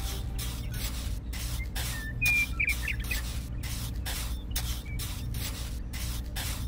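A small metal trowel scraping and dabbing wet cement in quick repeated strokes, about two or three a second. A bird chirps a few times about two seconds in.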